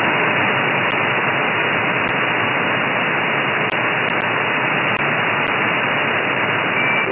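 Shortwave receiver static: an SDRplay RSPduo SDR on a Mini Whip active antenna, tuned in lower sideband to a spot on the 80 m band where no station is heard, giving a steady hiss held to the voice range by the receiver's filter, with a few faint ticks.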